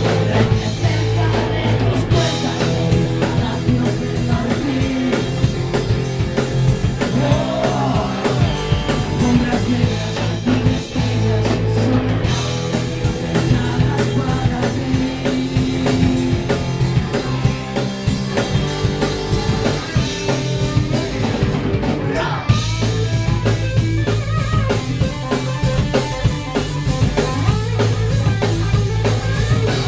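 Live rock band playing: electric guitars, bass guitar and drum kit with a singer. The music changes into a new section about two-thirds of the way through.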